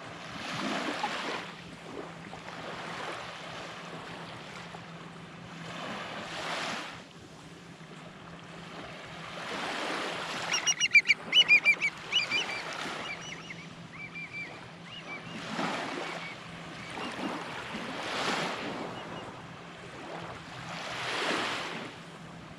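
Waves washing in on a beach, rising and falling every few seconds. About halfway through, a bird gives a quick run of short, loud honking cries.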